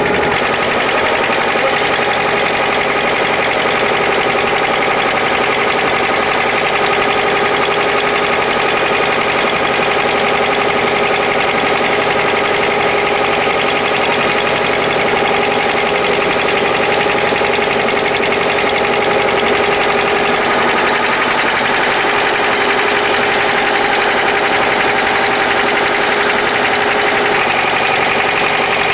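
An engine running steadily at constant speed, a continuous mechanical hum that does not change.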